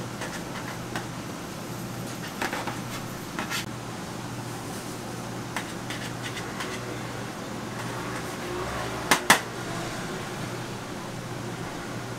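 Knife blade knocking on a stainless steel tray as roll cakes are sliced, a scatter of light clicks with two sharp, louder knocks in quick succession about nine seconds in. A steady machine hum runs underneath.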